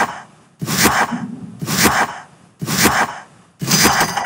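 Quiz countdown-timer sound effect: a sharp, noisy hit about once a second, fading quickly each time. The last hit, as the count reaches zero, carries a brief ringing tone.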